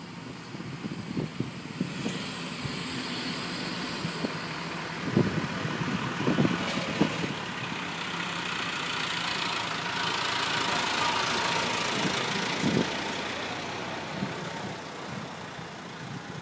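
The marina boat hoist's machinery runs steadily as it moves a suspended powerboat in its lifting straps, swelling for several seconds and then easing off. A few short knocks sound over it.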